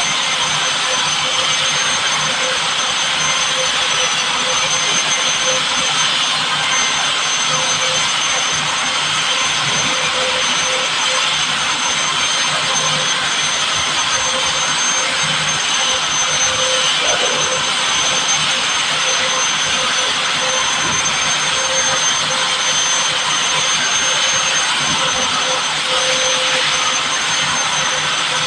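Milling machine running steadily, a continuous motor and drive noise with a thin high whine over it.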